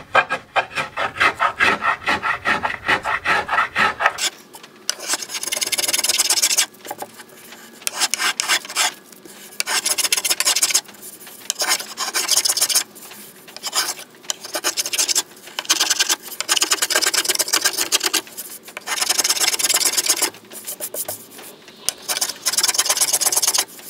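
Small curved-sole violin maker's plane shaving a laminated cedar canoe paddle blade. It makes quick short strokes for about the first four seconds, then about ten longer strokes of a second or so each, with short pauses between them.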